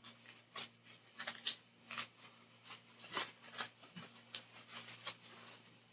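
Small packaging being handled and opened by hand: a string of light rustles, crinkles and taps.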